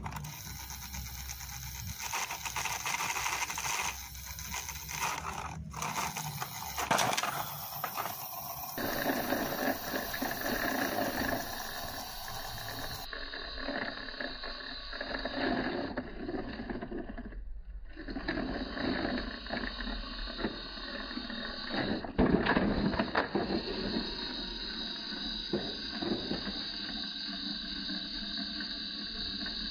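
Plastic toys being handled on concrete, with scraping and knocking, and a louder clatter about 22 seconds in as the toy tracked excavator tips off the toy truck and falls over.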